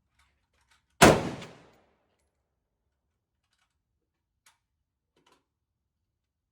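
A single AR-15 rifle shot about a second in, very loud and close, with its report echoing away over most of a second. Two faint clicks follow later.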